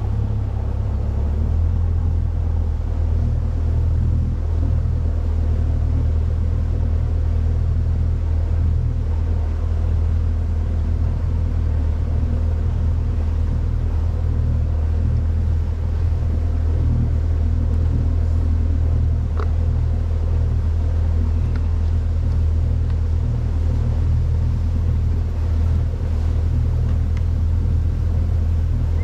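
Boat motor running steadily at cruising speed, a low even drone that shifts slightly in pitch about a second in.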